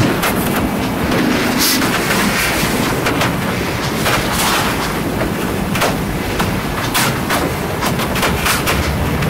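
Irregular sharp clicks and scrapes of a small metal pick working on the plastic cartridge-contact housings of a laser printer, over a steady loud background noise.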